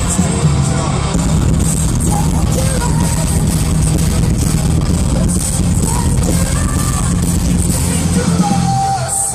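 Symphonic metal band playing loud live over a festival PA, heard from within the crowd: heavy bass and guitars with a sung line. The music drops away about nine seconds in.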